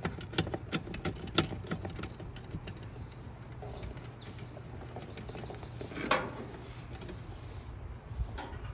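Quick clicks and light metal taps as a wire is screwed tight into a terminal while wiring an air conditioner, thinning out after a couple of seconds, with one louder knock about six seconds in. A low steady hum runs underneath.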